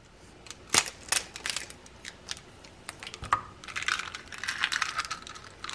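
An eggshell being cracked open and broken apart by hand over a glass bowl: a sharp crack about a second in, then a run of small crackles and crunches.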